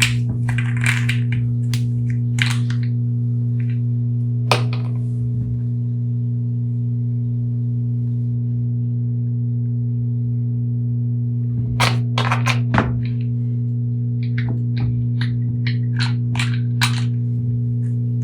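A steady low hum, with scattered clicks and light knocks over it: a few near the start, a louder pair about twelve seconds in, then a quick run of ticks.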